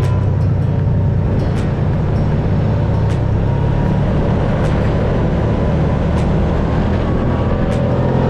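Side-by-side UTV engine running steadily under way, heard from aboard the machine, with a faint tick about every second and a half.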